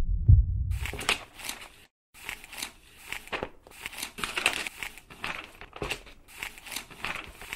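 Title-sequence sound effects: two deep, heartbeat-like booms at the start that fade away, then, from about a second in, a long run of paper crinkling and rustling with many quick snaps, which stops suddenly at the end.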